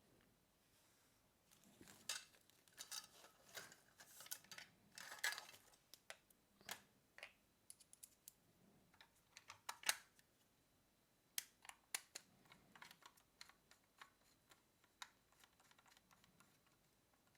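Faint, scattered clicks and short scrapes of small plastic parts and housing pieces being handled and fitted together as an electronic device is reassembled.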